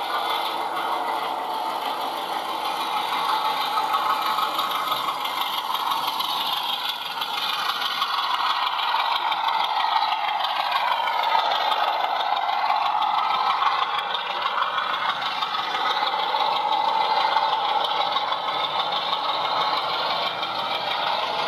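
OO gauge model of a BR Class 33 diesel locomotive pulling coaches. Its DCC sound decoder plays a diesel engine note over the rattle of the model's wheels on the track. The sound grows louder and changes pitch as the train passes about halfway through.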